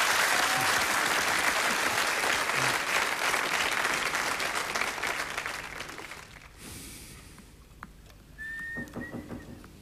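Studio audience applauding, fading out about six seconds in. Near the end there are two short high squeaks.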